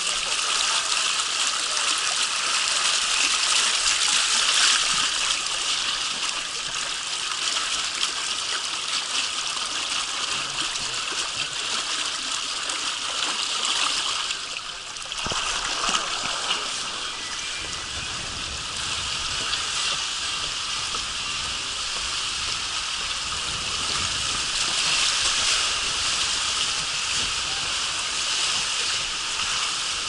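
Water rushing down an open water-slide flume in a steady hiss. About halfway through it breaks off briefly, then carries on with a low rumble added as an inflatable tube rides down the slide.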